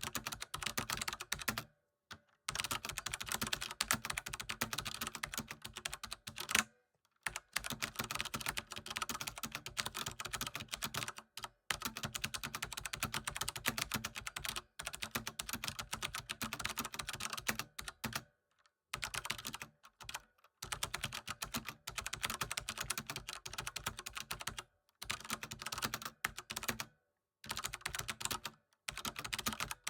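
Computer keyboard typing: dense runs of fast key clicks, broken every few seconds by short pauses.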